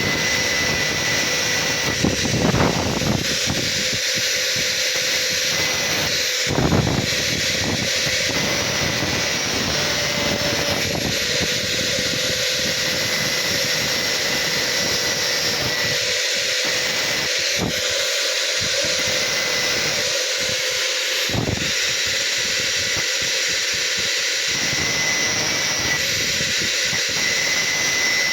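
Angle grinder running steadily as it cuts through metal, a constant high whine with a hiss. A few brief louder bumps break in now and then as the disc meets the work.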